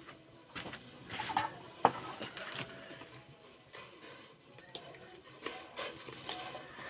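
Cooking pot and utensils being handled: scattered clatters and scrapes, with one sharp knock just under two seconds in.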